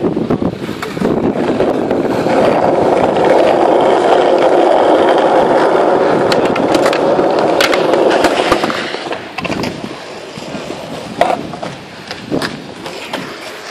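Skateboard wheels rolling on rough asphalt for several seconds, ending in a few sharp clacks of the board's tail and trucks striking the ground. It then goes quieter, with a few single board clacks.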